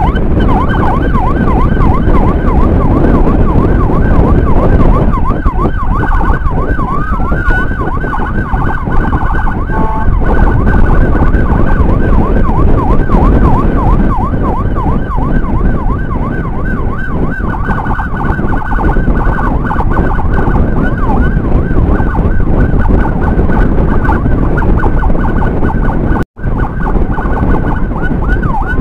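Emergency siren in fast yelp, its pitch sweeping up and down about three times a second over a steady high tone, with wind and motorcycle engine noise underneath. The sound cuts out for an instant near the end.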